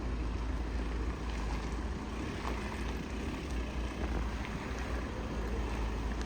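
A car engine idling steadily with a low, even rumble, with wind noise on the microphone.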